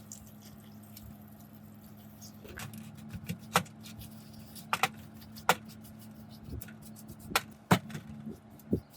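A series of sharp clicks and knocks, a few at first and then several more spread over the second half, over a steady low hum.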